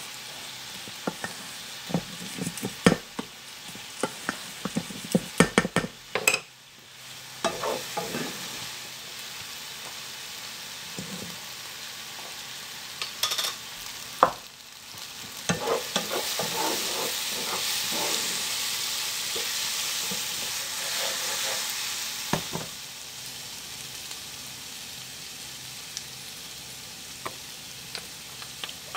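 Wooden spoon stirring a dry mix of rolled oats and corn flour in a bowl, with scraping and many sharp taps against the side of the bowl. Later comes a steady hissing noise that lasts several seconds.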